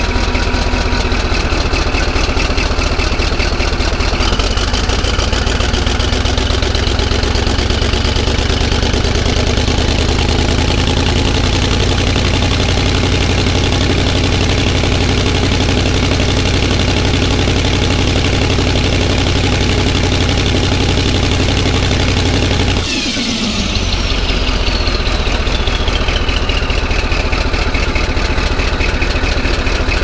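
Caterpillar D11 bulldozer's turbocharged diesel running loud through temporary straight pipes, with no mufflers. The revs climb slowly with a rising turbo whistle. About three-quarters of the way through the throttle drops back and the turbo whistle winds down.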